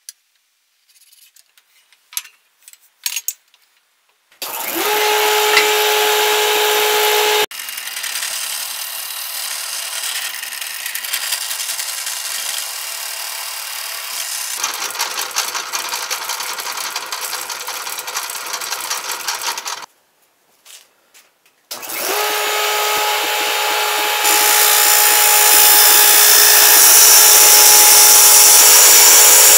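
Power tool working red oak. After a few handling clicks, a motor spins up to a steady whine and runs loud. A rougher, noisier stretch of work follows, then a brief pause, and the motor whine starts again and grows louder near the end.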